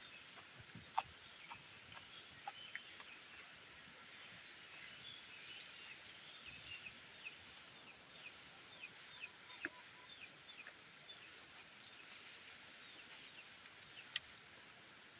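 Quiet eating sounds: scattered sharp clicks like utensils against a bowl, with birds chirping in the background, including a run of quick falling chirps in the middle.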